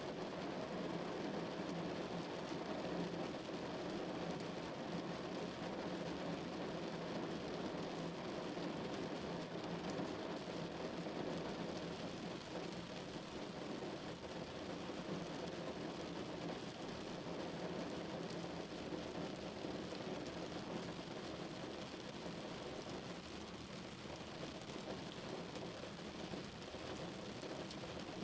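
Steady rain on a car's roof while the car drives, mixed with road noise.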